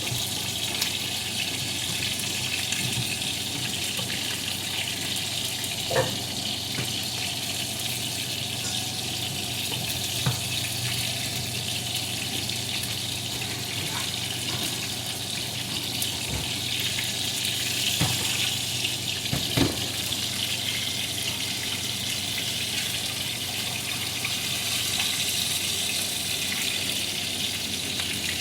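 Seasoned chicken drumsticks sizzling steadily as they pan-fry in oil, with a few short knocks of a utensil or pan.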